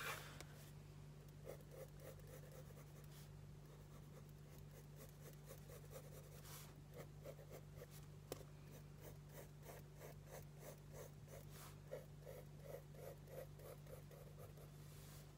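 Wooden pencil sketching on sketchbook paper: faint, quick back-and-forth strokes that settle into a rhythmic run of about four a second in the second half, over a steady low hum.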